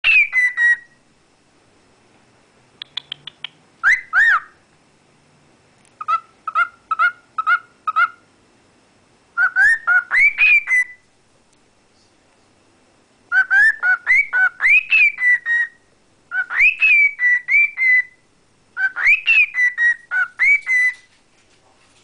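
Cockatiel whistling: groups of short rising and falling whistled notes, each burst lasting a second or two, with short pauses between. A quick run of short high ticks comes about three seconds in.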